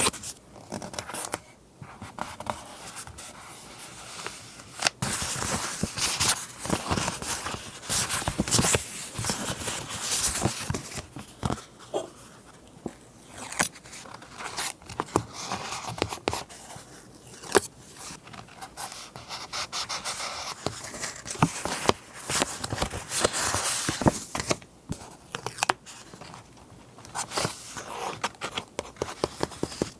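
Close-miked paper being handled for journal collage: rustling, scraping and crinkling, broken by many short sharp clicks and taps.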